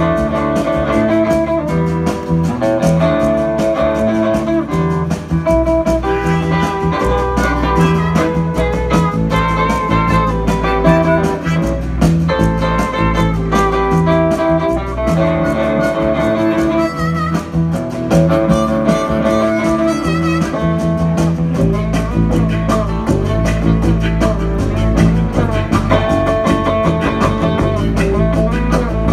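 Live country band playing an instrumental passage, led by a plucked acoustic guitar over bass and drums.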